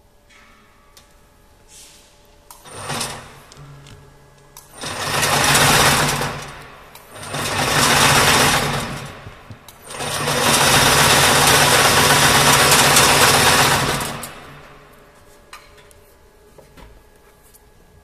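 High-speed wire harness braiding machine running in short starts and stops: a brief blip, then three runs of its bobbin carriers whirring over a low hum, the last and longest about four seconds, each cutting off suddenly.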